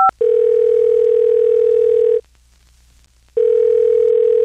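One short touch-tone keypad beep, then a telephone ringback tone: two long steady rings of about two seconds each, with a pause of about a second between them, as a call rings out.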